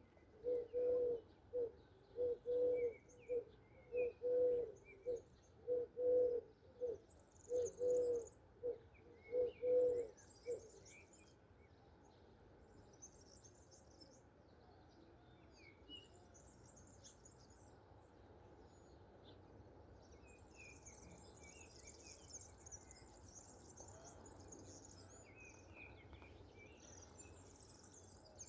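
A dove cooing over and over in a steady run of low coos, stopping about ten seconds in, while small songbirds chirp and twitter throughout, busier near the end.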